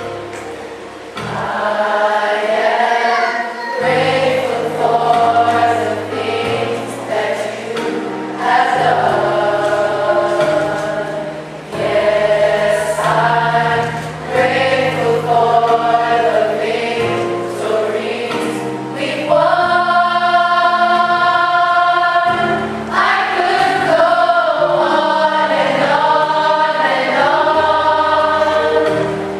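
A choir singing a gospel hymn with instrumental accompaniment, in phrases of held notes, with one long sustained chord about two-thirds of the way through.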